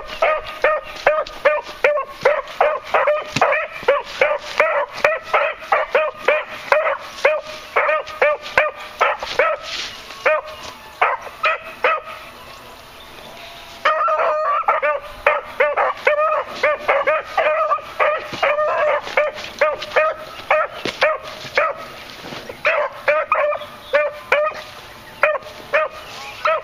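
Beagles baying: quick, repeated yelping barks, several a second, that stop for about two seconds midway and then resume.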